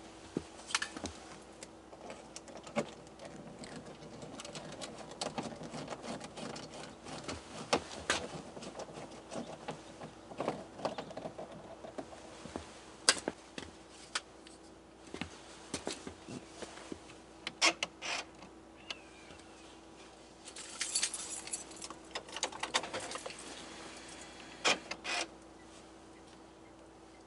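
Scattered clicks, taps and short metallic rattles of parts and tools being handled while the door's interior parts are refitted, over a faint steady hum.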